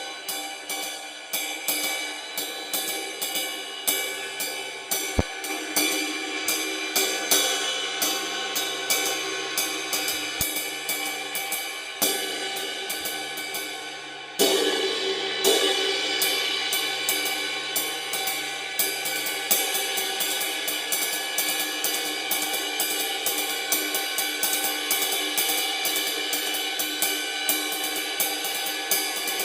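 Zildjian K Custom Dark Ride 20-inch ride cymbal (2,303 grams, four rivet holes drilled, no rivets fitted) struck in a steady ride pattern, each stroke over a dark, sustained wash. A harder stroke about halfway through makes it ring louder from then on.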